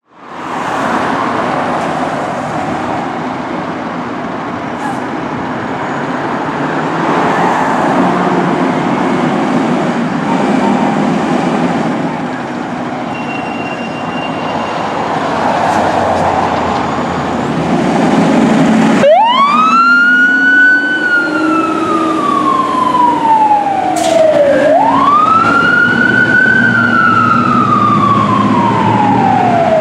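Pierce Arrow XT fire engine's siren coming on about two-thirds of the way through and wailing twice, each time rising quickly and falling slowly, as the engine responds to a call. Before it, the truck's engine and the street make a steady rumble.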